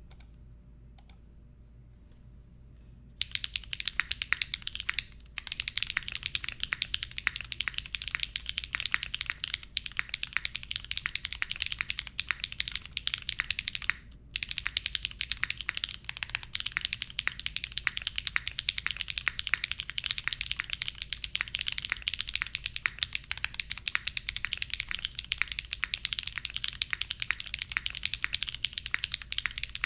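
Fast, continuous typing on a Geonworks F1-8X mechanical keyboard with lubed Drop Holy Panda tactile switches, an aluminium plate, no foam and GMK keycaps. It is a dense stream of keystrokes that starts about three seconds in, with short pauses near five and fourteen seconds.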